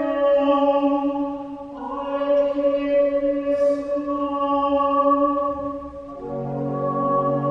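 Soprano singing long held notes over pipe organ accompaniment; about six seconds in, lower notes join beneath.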